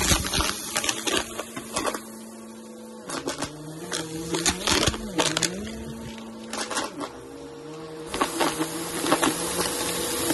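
Bissell upright vacuum running over carpet, its motor humming steadily while dry lentils rattle and crackle up through the brush head. The hum's pitch dips briefly twice around the middle.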